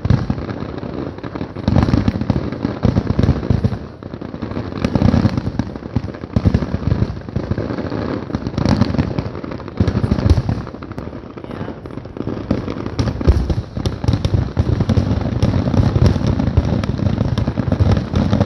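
Fireworks grand finale: a rapid barrage of aerial shell bursts, many booms and sharp bangs overlapping with no gaps between them.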